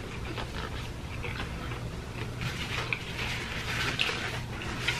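Eating sounds: chewing and small mouth and food-handling clicks, faint, over a low steady hum.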